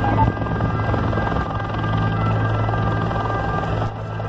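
Steady, loud low engine drone with a fast, even flutter.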